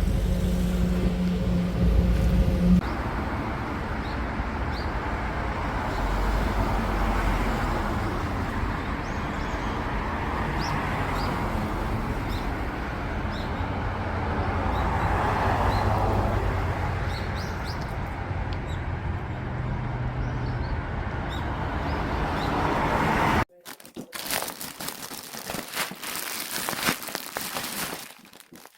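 Steady road-traffic noise. Near the end it cuts off suddenly to quieter rustling and crinkling.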